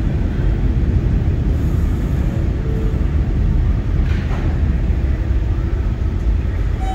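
Steady low rumble in a subway station, with an R160 subway train standing at the platform just before it pulls out.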